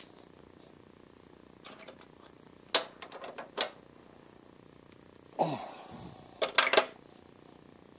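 Irregular metallic clicks and clacks as a South Bend lathe's headstock chuck is turned by hand, driving a tap into an aluminum pulley. The clicks come in four short bursts, the last the loudest. The burst about five and a half seconds in includes a short squeak that falls in pitch, over a faint steady hum.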